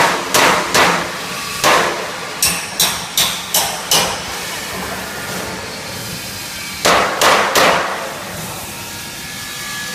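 A series of sharp, ringing knocks: four in the first two seconds, five more about two to three a second, then three near the seven-second mark. A steady mechanical hum runs underneath.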